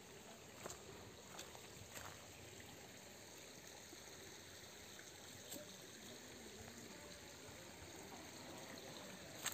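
Faint running water, a steady trickle, with a few light clicks here and there.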